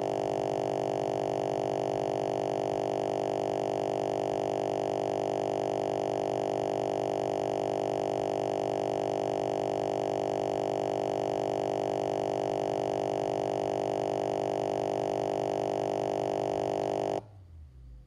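Steady buzzing drone from a laptop that has crashed to a Windows blue screen: the frozen sound card keeps repeating its last scrap of audio as one unbroken tone. It cuts off suddenly near the end.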